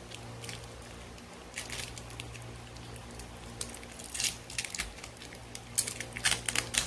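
Small sharp clicks and rustles of hands working a metal clasp and ring on a handbag strap, turning into a quick run of louder clicks about six seconds in, over a steady low hum.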